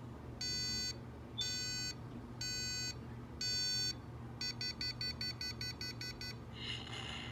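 Predator-style plasma cannon prop's Arduino-driven speaker playing its electronic firing sequence. Four long beeps come about a second apart, then a quick run of short beeps, about eight a second. Near the end a short noisy burst sounds as the cannon fires.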